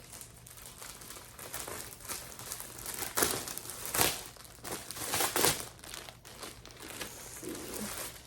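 Plastic poly bag crinkling and rustling as it is handled and opened to get the garment out, with a few louder crackly surges in the middle.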